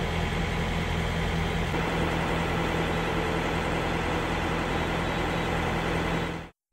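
Heavy diesel truck engine idling with a steady low hum, cutting off abruptly near the end.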